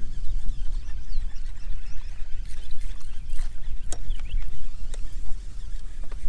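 Wind buffeting the microphone in a steady low rumble, with a few faint chirps and a couple of sharp ticks.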